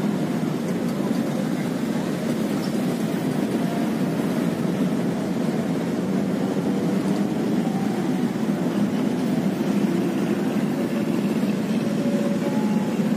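Steady low rumble of road traffic, car engines and tyres, with no single vehicle standing out.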